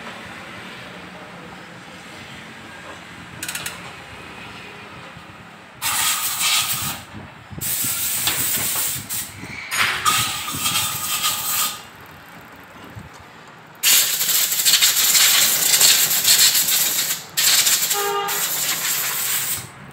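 Compressed-air blow gun hissing in repeated blasts, blowing dirt out of motorcycle carburetor parts: several blasts of one to two seconds, then a longer one of about three seconds and a last one near the end.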